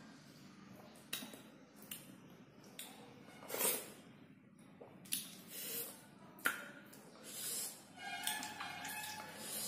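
Wet squishing of fingers kneading and mixing chopped fruit with salt and chilli powder on a plate, in short irregular bursts about once a second.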